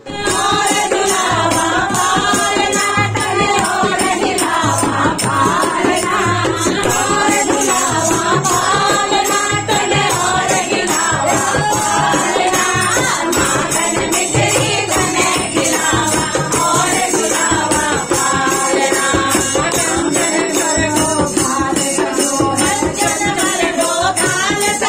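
Devotional Hindu group singing (a bhajan) with jingling hand percussion and a steady low drum beat, loud and continuous.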